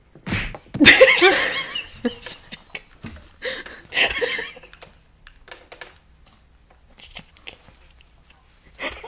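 Two women laughing hard, loudest about a second in, then trailing off into quieter giggles and stifled snickers.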